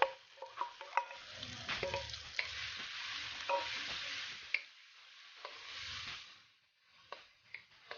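Food sizzling in a hot pan, with a utensil clicking and scraping against it. The sizzle dies away about six seconds in, leaving a few light clicks.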